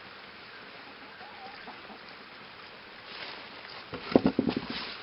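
Guinea fowl calling in a short, rapid run of loud notes about four seconds in.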